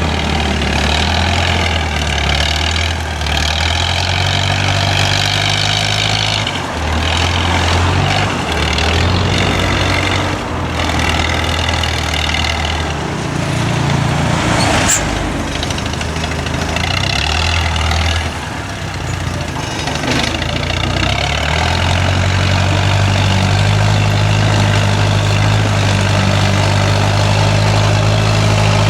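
Heavy diesel engine running, its pitch stepping up and down as the throttle or load changes, with bouts of hiss over it. A brief sharp click comes about halfway through.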